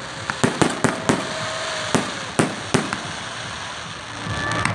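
Fireworks going off: a quick run of sharp bangs, with a hiss of crackling filling the gaps between them.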